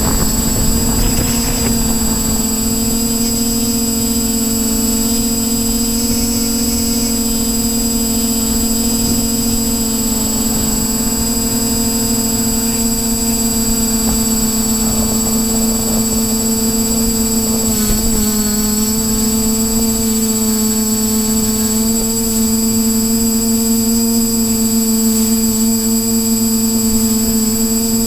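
Quadcopter's electric motors and propellers whining at a steady pitch in flight, heard from the camera on the craft. The pitch dips briefly once, about two-thirds of the way through.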